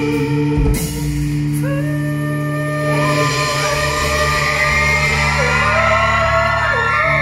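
Live pop-rock band playing: a male vocalist sings over electric guitar, bass and drums.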